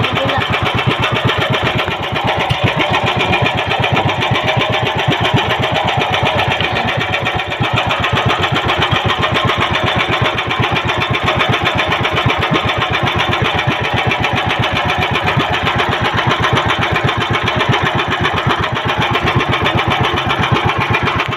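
Small engine of an outrigger fishing boat running steadily, a fast, even chugging with no change in speed.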